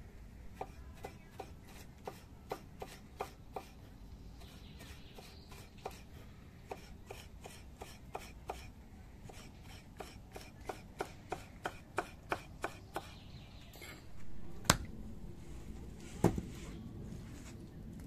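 Knife chopping on a board in runs of quick, even strokes, about three a second, with two heavier knocks near the end.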